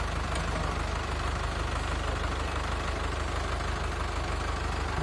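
Mahindra Arjun 555 Ultra tractor's diesel engine running steadily at low revs as the tractor crawls along in its added extra-low gear.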